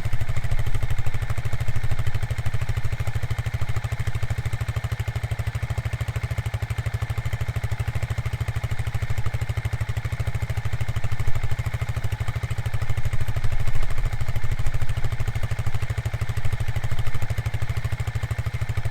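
Quad bike (ATV) engine running steadily with a low pulsing beat, swelling briefly a couple of times.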